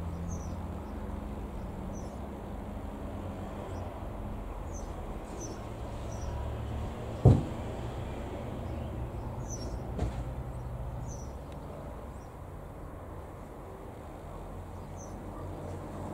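Aeronca Chief light aircraft's four-cylinder Continental engine droning as it passes overhead, fading in the second half, with small birds chirping. A sharp thump about seven seconds in is the loudest sound, with a smaller knock a few seconds later.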